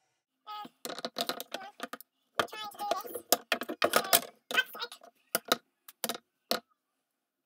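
Camera being handled and repositioned close to its built-in microphone: an irregular clatter of knocks, clicks and rubbing that stops shortly before the end.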